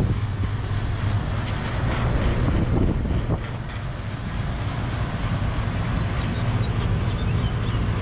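Packaged air-conditioning units running: a steady low compressor hum under the even rush of the condenser fans.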